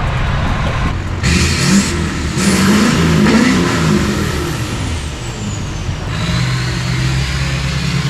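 A pickup truck's Duramax diesel engine pulling while driving, its pitch rising and falling in the middle of the stretch, over steady road and wind noise.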